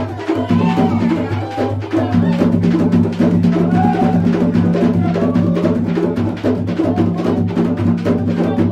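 Percussion music: drums struck in a fast, dense rhythm over a steady low drone.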